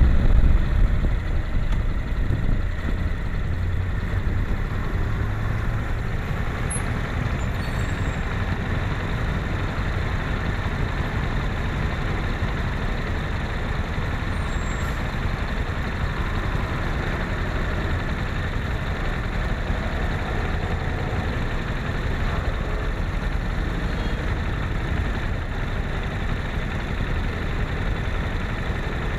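Honda NC700X's parallel-twin engine idling steadily while the bike stands still. The rush of wind dies away within the first second or two as the bike comes to a halt.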